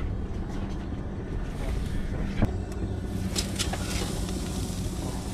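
Steady low hum of a boat's engine, with wind buffeting the microphone. A single sharp knock comes about two and a half seconds in.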